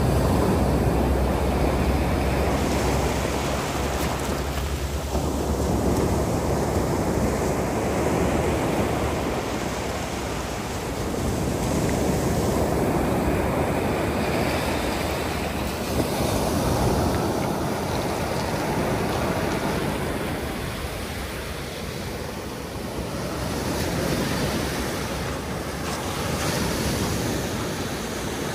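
Sea waves breaking and washing onto the beach, the noise swelling and fading every several seconds. Wind rumbles on the microphone through the first half.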